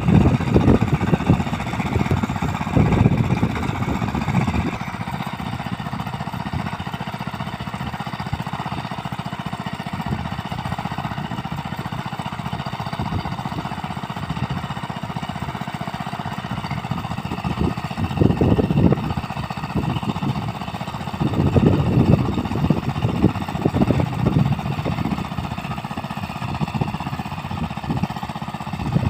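Small engine of a mini paddy-field plough running steadily, growing louder several times as it works harder.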